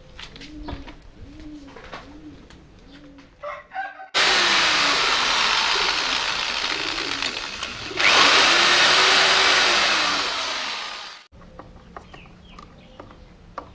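Hand-held electric drill running for about seven seconds while boring a pilot hole into wood, getting louder about halfway through, then slowing and stopping. Before it, a dove coos in a short repeating phrase.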